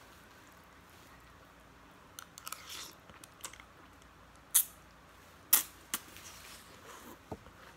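Instant noodles being slurped off a fork and chewed: short sucking slurps from about two seconds in, then several sharp loud clicks and smacks, the loudest about halfway through.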